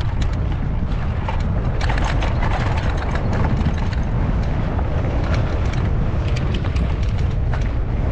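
Wind rumbling on the microphone of a moving e-bike, with frequent clicks and crunches from its tyres rolling over a loose dirt trail.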